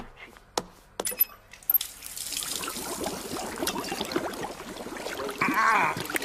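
A few sharp clicks and knocks, then from about two seconds in, hands splashing and sloshing in a sink of soapy water. Near the end there is a short wavering high sound.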